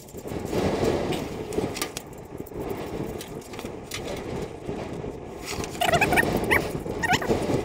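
Hand and metal parts rubbing and scraping inside a steel air cleaner housing. A few short, high squeaks follow about six seconds in.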